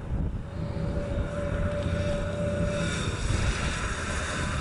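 1957 Chevrolet Nomad's V8 engine running steadily as the car drives slowly toward the microphone, a low rumble, with tyre and road noise growing louder from about a second in.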